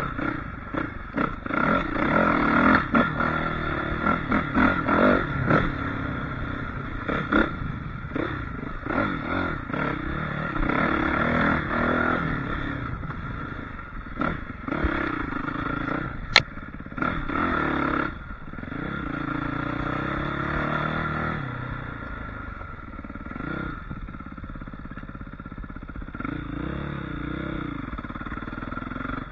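Suzuki RM-Z450 four-stroke single-cylinder dirt bike engine revving up and dropping off again and again as the throttle is worked over rough trail, with frequent knocks and rattles. One sharp click about halfway through, and steadier running in the second half.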